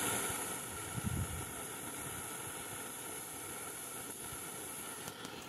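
MSR canister backpacking stove burning on an IsoPro gas canister, its burner giving a steady hiss under a pot. A soft low thump about a second in.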